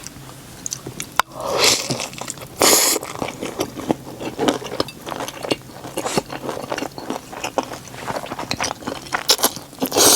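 Close-miked eating sounds: biting and chewing leftover fried chicken and Buldak noodles, a steady run of wet mouth clicks with a few longer noisy bursts, the loudest about two and three seconds in.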